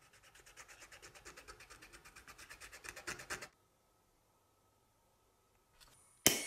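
Cotton swab scrubbing rusty painted tin: a quick run of scratchy strokes, several a second, growing louder and then stopping about three and a half seconds in. Near the end, one sharp, loud click as a lighter is sparked at the nozzle of a gas torch.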